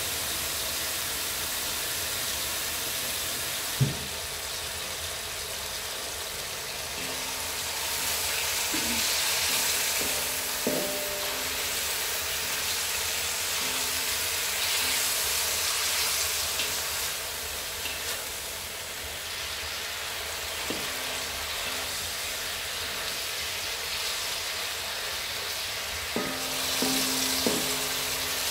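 Sliced beef sizzling in oil in a wok while a spatula stirs it, scraping across the pan. The sizzle swells and eases as the meat is turned, with sharp knocks of the spatula against the wok about four seconds in, near the middle and several near the end.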